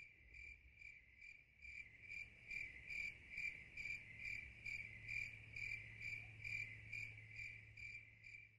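Faint insect chirping: a steady high trill that swells in even pulses about twice a second, over a low steady hum.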